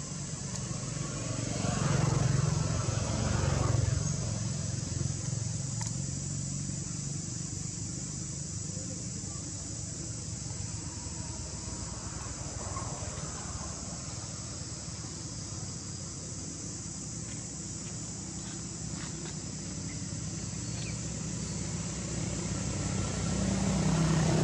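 Steady high insect chorus with a motor vehicle engine running in the background, swelling louder about two seconds in and again near the end.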